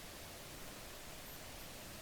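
Faint steady hiss of room tone, with no distinct sound.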